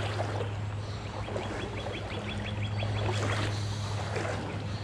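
Shallow stream water running with a steady low rumble. A little over a second in, a quick run of about a dozen high ticks lasts about a second and a half.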